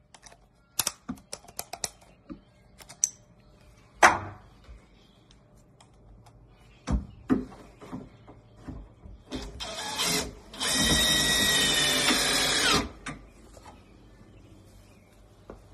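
Cordless drill with a multi-head attachment. First comes a string of sharp clicks and knocks, with one louder knock about four seconds in, as bits are handled. Near the end the drill starts briefly, then runs steadily with a motor whine for about two seconds and stops suddenly.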